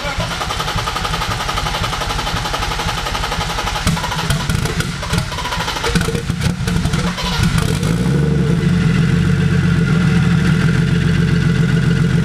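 Turbocharged BMW E36 engine running: rough and uneven with revs and clattery pops for the first several seconds, then settling about eight seconds in to a steady idle.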